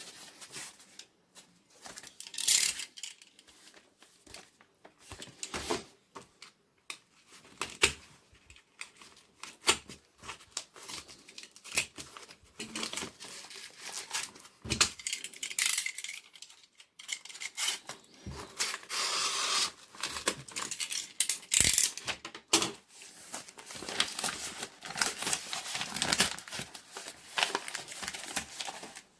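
Packaging being torn open and crinkled by hand: irregular rips, rustles and small clicks, with longer tearing stretches about two-thirds of the way through.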